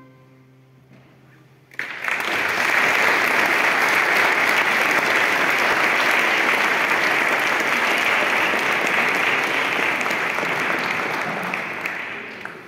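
Audience applause that starts suddenly about two seconds in and goes on as steady, even clapping, tailing off near the end. Before it, the last held chord of the concert music fades away.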